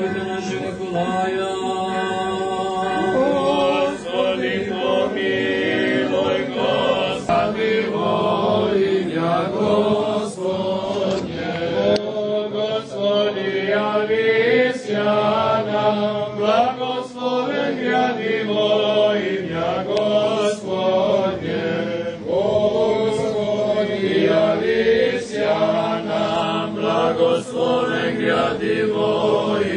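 Serbian Orthodox liturgical chanting: voices sing long, sustained phrases of a slow church hymn over a steady low held note.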